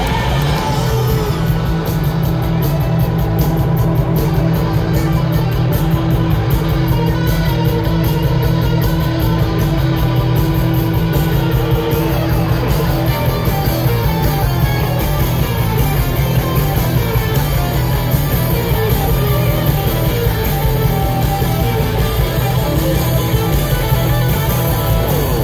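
Live rock band playing through a stadium PA, recorded from the crowd: electric guitar and drums, with one note held through the first half.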